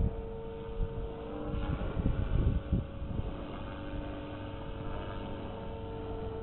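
Blade 360 CFX electric RC helicopter in flight: a steady motor and rotor whine, with gusts of wind rumbling on the microphone in the first three seconds.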